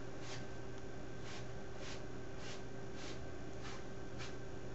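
Steady low hum and faint room noise, with about seven soft, faint swishes spaced irregularly through it.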